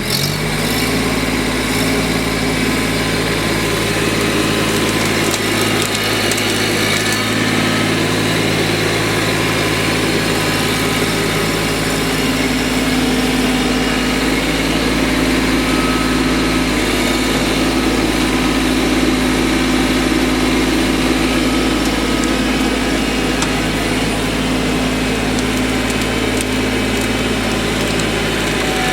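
Mahindra Max compact tractor's diesel engine running at a steady speed.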